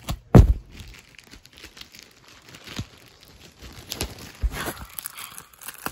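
Plastic packaging crinkling and rustling as a folded T-shirt in its clear bag is handled, with a loud thump about half a second in and a few sharp knocks later.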